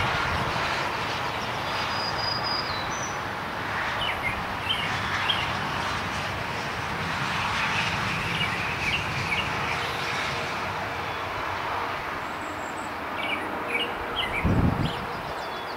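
Steady noise of wind and distant highway traffic, with short bird chirps scattered through and a brief low rumble about fourteen seconds in.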